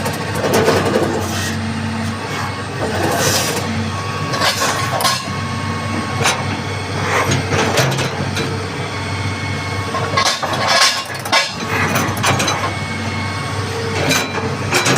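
Hitachi excavator's diesel engine running steadily, with repeated sharp metallic clanks and knocks over it.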